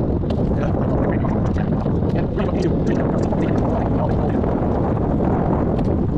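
Wind buffeting the microphone of a camera riding on a moving road bike: a steady, loud, low rumble, with scattered light ticks over it.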